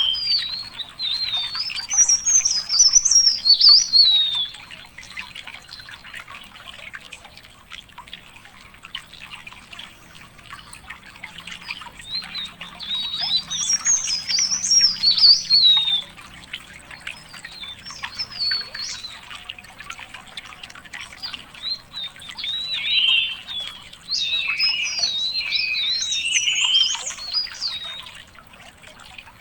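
A songbird singing in rapid, high-pitched warbling phrases, each a few seconds long, with pauses between them: one at the start, another a little before halfway, and a longer one near the end.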